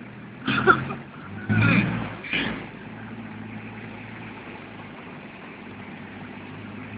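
A car engine runs at a steady low hum under an even rush of rain and water on the street. Three short, loud bursts come in the first two and a half seconds.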